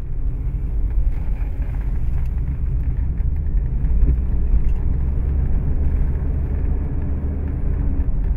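1981 Rolls-Royce Camargue driving at a steady pace, heard from inside the cabin: an even, low rumble from its 6.75-litre V8 and the road.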